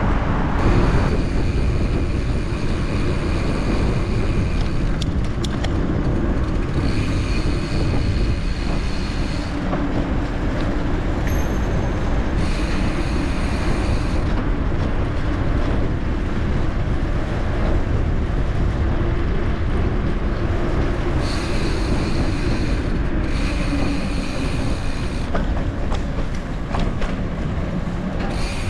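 Gravel bike being ridden off-road: steady rumble of tyres over rough ground and wind on the microphone, with a high-pitched buzz that comes and goes in stretches of a second or two, several times.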